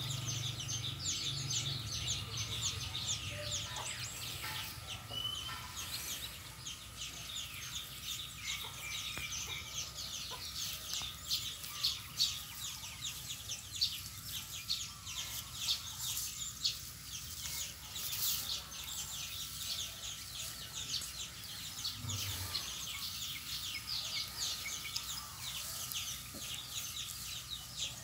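Dry straw rustling and crackling as puppies shift about in it, a steady scatter of small crackles throughout, with a few soft low thumps.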